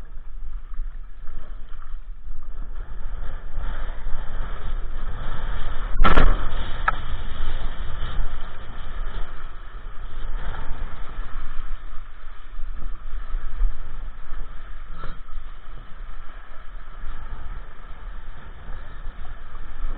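Wind buffeting the microphone and water rushing under an iSonic windsurf board sailing in strong wind, a steady rough rumble. About six seconds in comes one loud thump.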